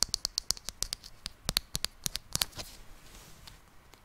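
Long fingernails scratching a plush toy close to the microphone: a quick run of short, sharp scratches that thins out about two and a half seconds in.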